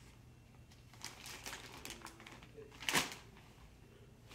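Clear plastic bag crinkling faintly in short rustles as it is handled, with one louder crinkle about three seconds in.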